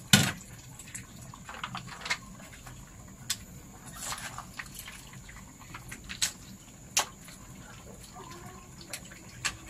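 Broth simmering in a wok over a wood fire: a faint bubbling with scattered sharp pops and crackles, the loudest right at the start.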